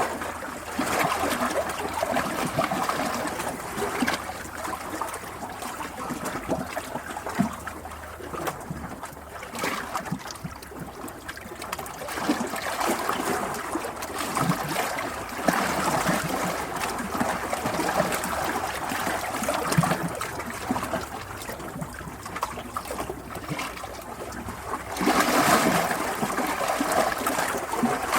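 Water trickling and flowing in uneven surges, louder for a few seconds near the end.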